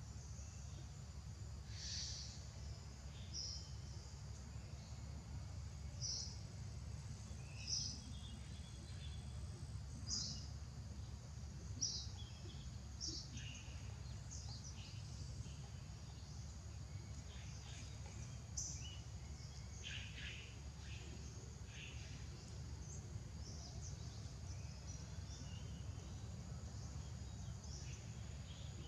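Outdoor ambience: a steady low rumble under a thin, steady high drone, with short high chirps every second or two.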